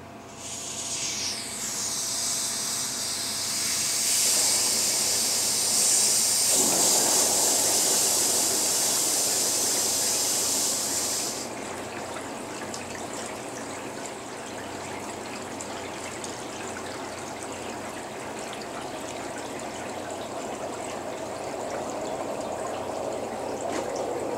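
Compressed air hissing from a coiled air hose, stopping abruptly about eleven seconds in. From about seven seconds in, liquid gushes and bubbles inside the PVC anodizing tank and keeps going.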